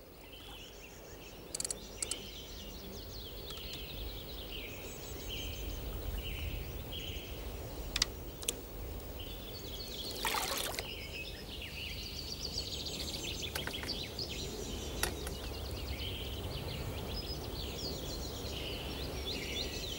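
Birds singing with many short chirping phrases over a steady low rumble. About ten seconds in, a brief splash of water as a landing net holding a fish is lifted out of the lake, with a few light knocks around it.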